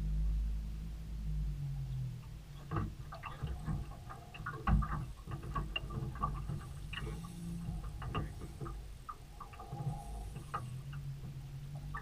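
Irregular clicks and knocks from handling on a small boat's deck while a fish is fought on a spinning rod, over a low steady hum; the clicks begin about three seconds in.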